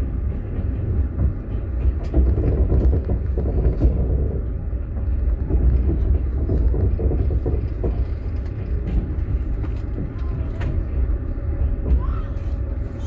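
Russian platzkart sleeper railway carriage on the move, heard from inside: a steady low rumble with a sharp knock now and then.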